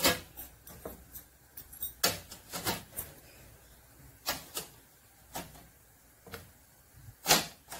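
Batter-filled plates being set one after another into a sieve over a steaming pot: a dozen or so sharp knocks and clinks of plate against plate and sieve, irregularly spaced, the loudest near the end.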